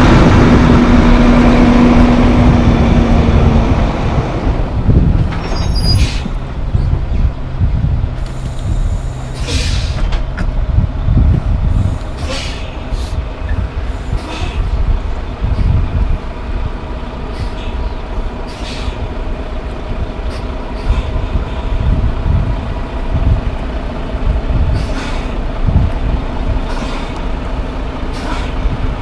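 Volvo semi-truck's diesel engine pulling past up close, loud for the first few seconds, then dropping to a steady lower running note as the rig slows and stops. Short air-brake hisses come through repeatedly, with a longer hiss about nine seconds in and a brief high brake squeal about six seconds in.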